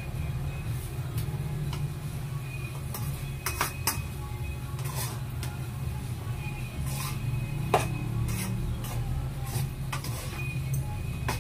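A spatula scraping and tapping in a frying pan as bamboo shoots are stirred in their adobo sauce, with one sharper knock about two-thirds of the way through, over a steady low hum.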